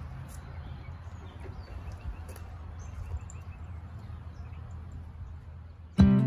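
Outdoor backyard ambience: a steady low rumble with faint birdsong and a few light clicks and knocks. About six seconds in, strummed acoustic guitar music starts suddenly and loudly.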